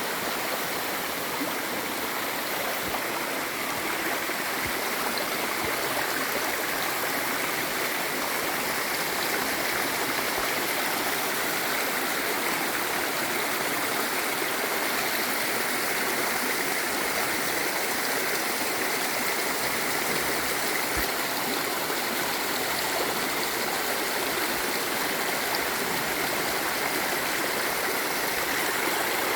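Flowing water rushing steadily and without a break.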